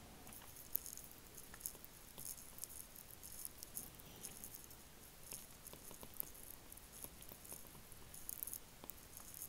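Faint, irregular taps and light scratches of a stylus writing on a tablet's glass screen.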